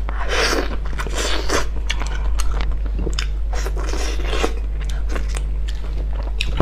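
Close-miked biting and chewing of salt-baked chicken: many short wet mouth clicks and a few louder crunchy bursts, over a steady low hum.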